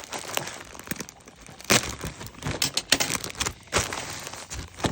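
A plastic bag of bead findings crinkling and crackling as it is handled and opened, in irregular rustles with a few sharper crackles.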